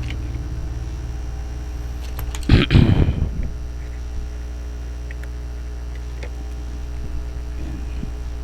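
Steady low rumble and hum, with a short louder burst of noise about two and a half seconds in and a few faint clicks after it.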